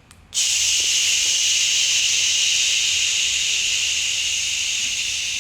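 A long, steady hissing breath out, starting sharply under a second in and slowly fading toward the end.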